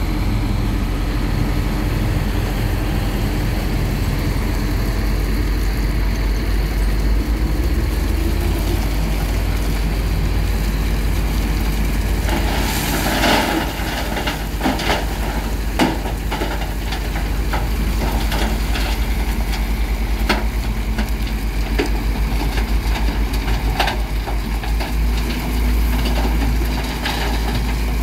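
Heavy diesel road-construction machinery running with a steady low engine drone. About halfway through there is a burst of hissing noise, followed by scattered sharp knocks and clanks.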